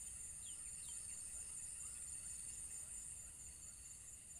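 Steady high-pitched insect chorus, with a faint repeating trill and a few short faint chirps about half a second to a second in.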